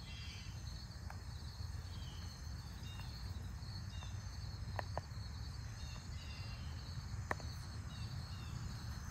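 Outdoor ambience: insects buzzing steadily over a low rumble, with a few faint short chirps and clicks.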